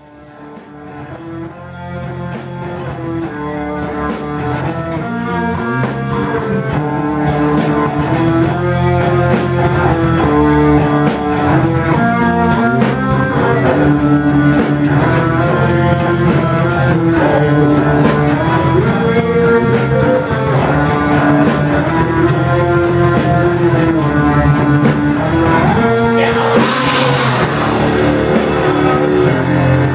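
A heavy metal band playing: a distorted electric guitar riff over a drum kit with fast, steady cymbal strokes. It fades in from silence over the first several seconds, and a louder cymbal crash comes near the end.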